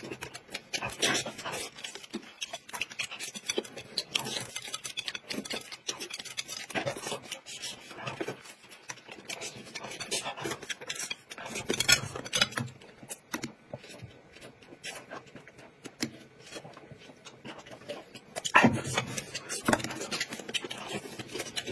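Close-miked eating sounds: two people chewing steamed buns and dumplings, with irregular mouth smacks and chopsticks clicking against plates.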